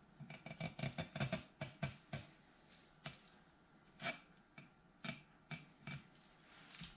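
Craft knife blade scoring through masking tape on a chrome hubcap, making short scratchy clicks. There is a quick run of them in the first two seconds, then single ones every half second to a second.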